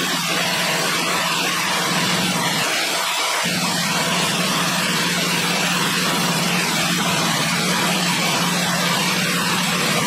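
Sawmill running steadily: a constant low engine hum under a loud, even noisy rush, with no pauses.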